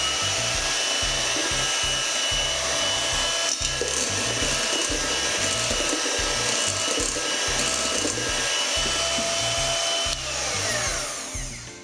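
Electric hand mixer running steadily, mixing egg yolks into whipped egg whites, with a steady high whine; it slows and stops about ten seconds in.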